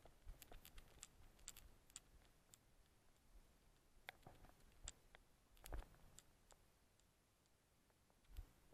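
Near silence with scattered faint clicks and a few soft knocks, the loudest a low thump just under six seconds in: a dog-mounted action camera jostled as the dog moves and is petted.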